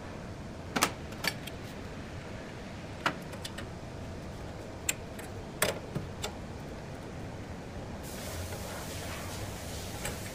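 Sharp metallic clicks and clinks of a hand wrench and metal fittings being handled on the oil separator tank of a screw air compressor, about seven scattered strikes over a steady background hiss.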